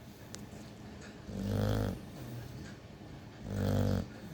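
Dog snoring loudly in its sleep: two long snores about two seconds apart.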